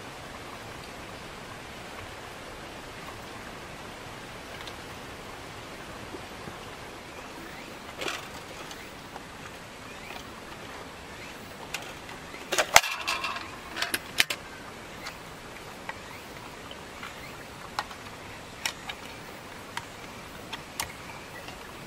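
Plastic clicks and clatter as a battery camping lantern is handled and its battery cover opened, with a dense burst of clatter about halfway through and a few single clicks after. A steady hiss runs underneath.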